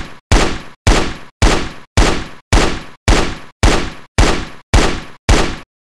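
Galil assault rifle shots fired singly at a steady pace of about two a second, each a sharp crack with a short decaying tail. About ten shots, stopping abruptly near the end.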